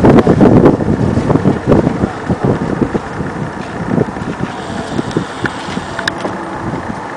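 Gusty wind buffeting the microphone, an uneven rumbling roar that is loudest in the first second and then keeps surging irregularly.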